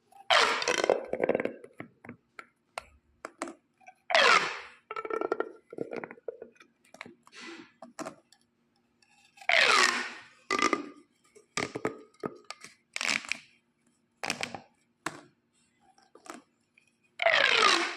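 Corrugated plastic pop tubes being stretched and squashed, their ribs popping in quick crackling runs. Four longer, louder runs fall in pitch: at the start, about 4 s in, about 10 s in and near the end. Shorter pops and clicks come between them.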